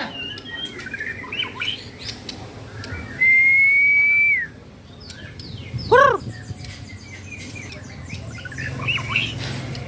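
Caged white-rumped shamas (murai batu) singing: assorted chirps and short whistled phrases. About three seconds in there is one long, steady whistled note, and about six seconds in a short, loud arched call.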